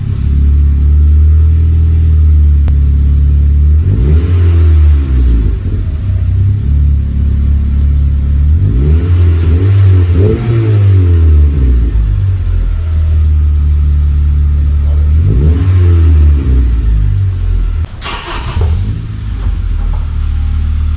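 Honda Civic Si's K24 2.4-litre four-cylinder idling through a freshly fitted Full Race cat-back exhaust. It is revved up and let fall back to idle several times.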